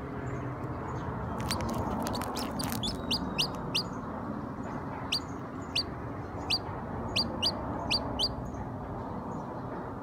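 Newly hatching chicken chick peeping from inside its cracked shell: about ten short, high peeps spaced over five seconds, after a quick run of sharp high clicks. A steady low hiss underneath.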